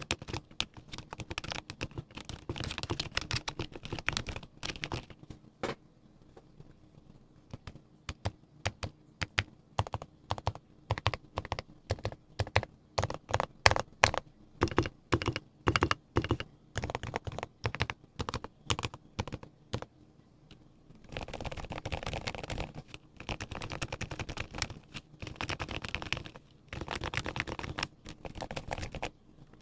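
Typing on a Mode Eighty custom mechanical keyboard with lubed silent Gateron Ink switches, a full brass plate and PBT keycaps: soft, muted key presses. Fast runs of keystrokes give way to a brief lull about six seconds in, then slower separate presses, then fast typing again over the last third.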